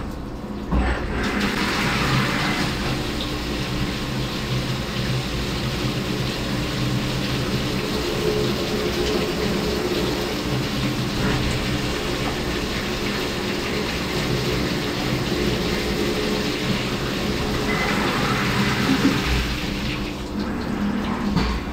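Syil X7 CNC vertical mill drilling under flood coolant: the coolant splashes and hisses over the part and vise, coming on strongly about a second in, over the steady hum of the spindle and machine.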